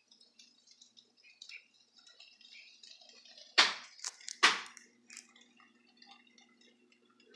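Two loud knocks about a second apart, amid faint scattered clicking and ticking; after the second knock a faint steady hum sets in.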